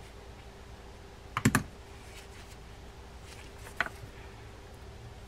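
Small clicks and taps of a spinning fishing reel's parts and a screwdriver being handled: a sharp double click about a second and a half in, a single click near four seconds, and a few fainter ticks between, over a faint steady hum.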